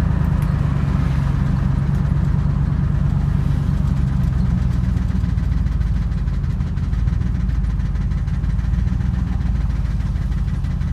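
Chevrolet squarebody pickup's engine running as the truck drives, heard from inside the cab: a steady low drone whose note shifts a little about halfway through.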